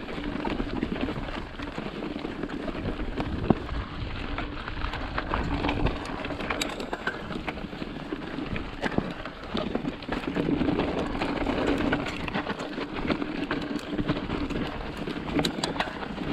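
Mountain bike rolling over a dry dirt and gravel trail: a steady crunch and rumble of the tyres, with many small clicks and rattles from stones and the bike.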